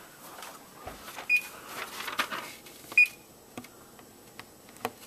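Electric oven's push-button control panel beeping as it is set to preheat: two short high beeps about a second and a half apart. Soft button taps and rustling come between them.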